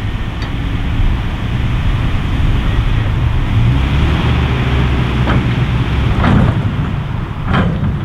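Truck engine running steadily with road noise as the vehicle pulls slowly forward, with two short squeaks near the end.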